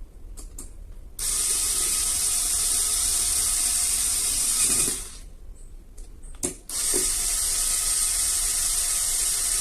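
Electric screwdriver running in two bursts of about three and a half seconds each, with a short pause and a couple of clicks between, driving screws into a fan motor housing.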